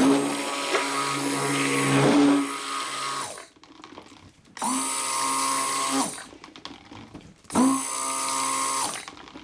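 Electric stick blender run in three pulses in a plastic jug of soap batter, mixing in colorant: one of about three seconds, then two shorter ones. Each pulse starts with the motor's whine rising in pitch as it spins up, and the motor then holds a steady pitch.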